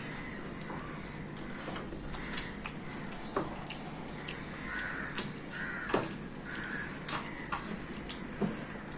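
Fingers mixing egg-fried rice in a steel bowl: wet, sticky clicks and squelches, with a few sharper clicks and mouth smacks as a handful is eaten near the end.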